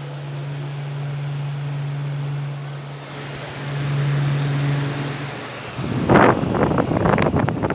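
Arno Silence Force 126 W electric fan running: a steady rush of air over a low motor hum. About six seconds in, loud irregular buffeting starts, like the fan's airflow striking the microphone.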